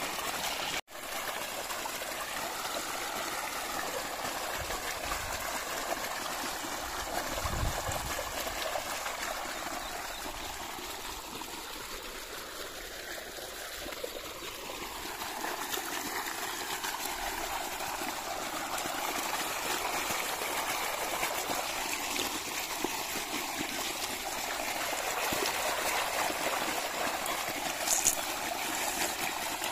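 Water gushing out of a motor-fed irrigation pipe onto grass and running off into field channels: a steady rush of splashing, flowing water. The sound cuts out for an instant about a second in.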